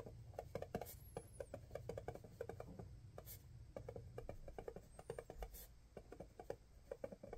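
White paint marker writing on a paper label: a quick, irregular run of faint scratches and taps of the tip as the letters are drawn.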